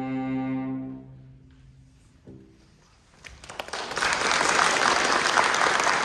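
Cello holding the final note of the slow movement, which dies away about a second in, with a faint short tone just after two seconds. About three seconds in, audience applause begins and grows into steady clapping.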